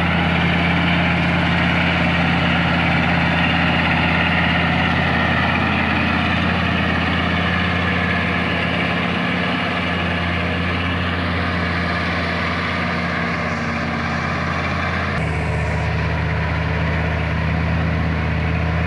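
Heavy diesel engine running steadily at a constant speed, a deep even drone with a broad mechanical noise over it; about fifteen seconds in the sound changes suddenly and the higher noise drops away.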